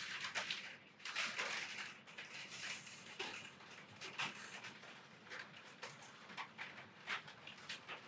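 Faint, irregular scratchy dabs and strokes of a small paintbrush on hot-pressed watercolour paper.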